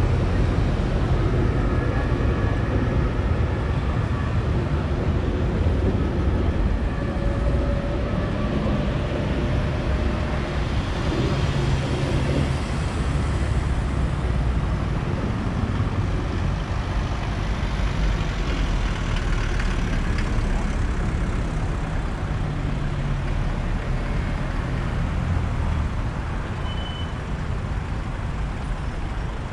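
Old hearses driving past one after another: engines running and tyres on the road, a steady rumble of passing traffic.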